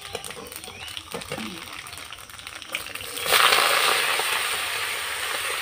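Chopped kharkol (Bengal arum) leaves and chillies hitting hot mustard oil in an aluminium wok: a sudden loud sizzle starts about three seconds in and carries on, slowly easing. Before it, a metal spatula clinks and scrapes in the pan over the oil's low sizzle.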